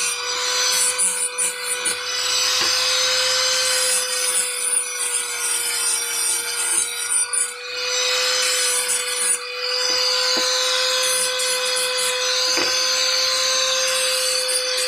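Electric power tool running at a constant pitch while it cuts or sands material, its motor whine over a rasping noise, with a couple of brief dips.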